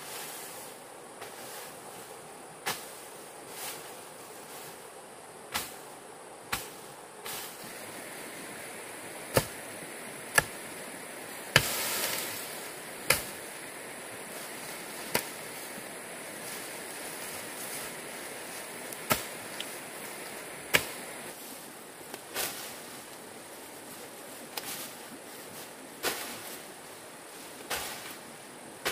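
Irregular sharp chopping strikes, about one every one to two seconds and some much louder than others, over a steady high hiss.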